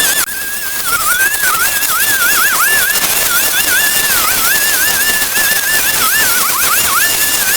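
A high whistled melody: one clear tone held and broken again and again by quick downward swoops, over a steady hiss.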